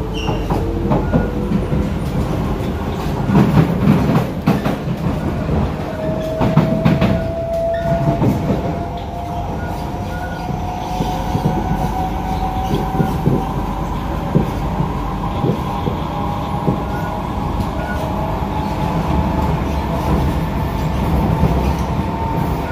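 SMRT C151A metro train heard from inside the car as it accelerates away from a station. The traction motors give a whine that rises slowly in pitch over a steady rumble, and the wheels clatter over the track several times in the first third.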